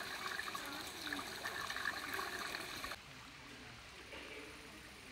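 Running water, trickling and splashing steadily. It cuts off abruptly about three seconds in, leaving a fainter steady hiss.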